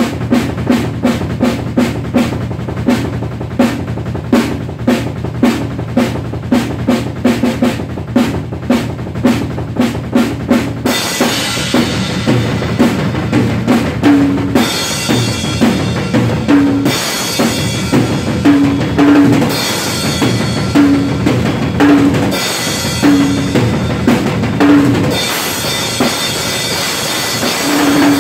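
Acoustic drum kit played solo in fast strokes across snare, toms and bass drum. For about the first eleven seconds only the drums are heard, then cymbals come in over the drumming, with short breaks every few seconds.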